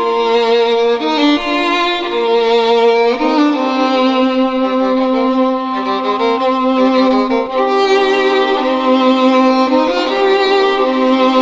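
Violin music with long held notes, several sounding at once, changing pitch every second or two.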